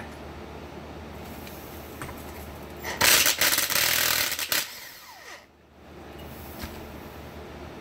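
Cordless Milwaukee impact wrench hammering in a rapid burst for about a second and a half, backing out a cap on a John Deere hydraulic pump.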